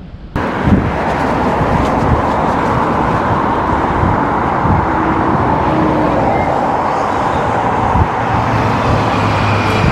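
Road traffic going by, with wind blowing across the microphone, as one loud steady rushing noise. It comes in suddenly a fraction of a second in.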